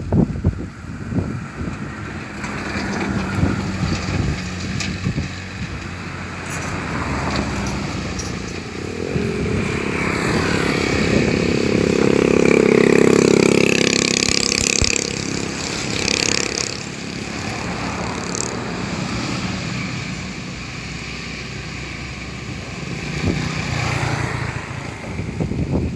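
Motorcycle engine running and revving up and down, loudest about halfway through.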